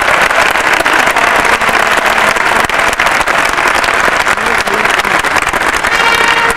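Large crowd applauding steadily, a dense patter of clapping. Near the end, band music starts up over it.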